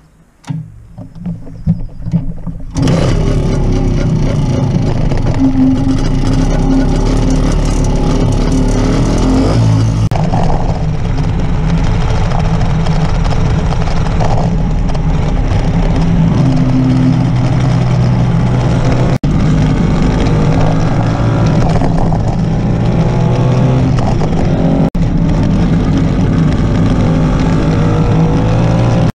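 Rabeneick LS175 motorcycle's Sachs two-stroke single-cylinder engine running while riding, its pitch rising and falling with throttle. A few knocks come first, then the engine sound comes in suddenly about three seconds in.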